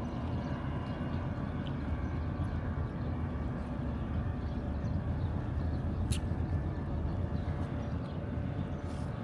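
Motorboat engine running steadily with a low drone, and a single sharp click about six seconds in.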